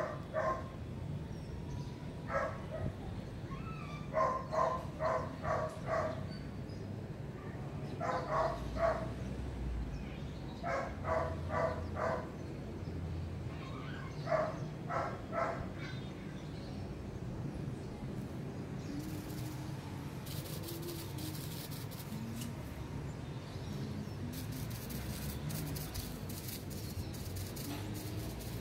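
A dog barking in short runs of three to five quick barks, with pauses of a second or two between runs, then falling quiet.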